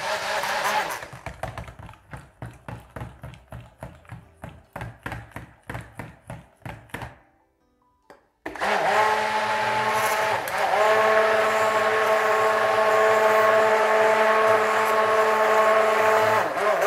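Electric stick blender in a bowl of raw soap batter (oils, goat milk and lye). It runs, is then pulsed in short bursts about three times a second, stops briefly, and then runs steadily for about eight seconds, mixing the batter.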